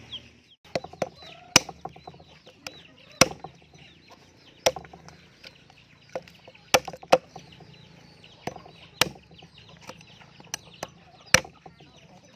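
A hand-forged steel survival knife chopping through meat and bone on a wooden stump block: about a dozen sharp, irregular strikes, roughly one a second. Chickens cluck in the background.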